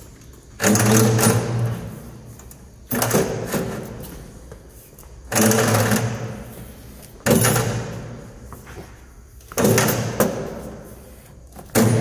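Thick 4-core 70 mm² power cable being pushed through a brass cable gland into a metal enclosure in six hard shoves about two seconds apart. Each shove starts suddenly as a scraping rush and fades over about a second.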